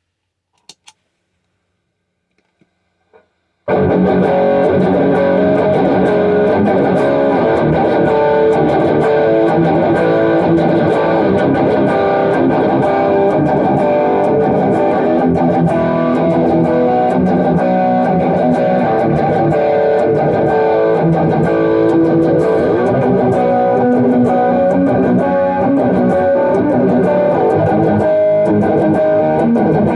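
Electric guitar in drop B tuning (C sharp standard with the low string tuned down to B), played continuously from about four seconds in, after a few faint clicks.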